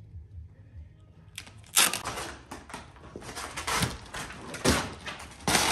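Vinyl wrap film rustling and crinkling as it is handled and worked over the car's body, in a run of rough bursts that starts a little under two seconds in, after a quiet start.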